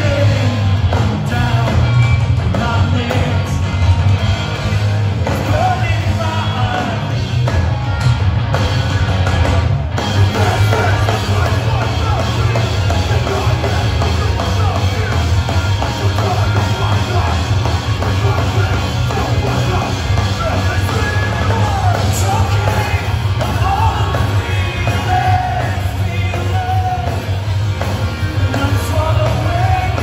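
Live hardcore band playing at full volume: distorted electric guitars, bass and drums with sung and yelled vocals.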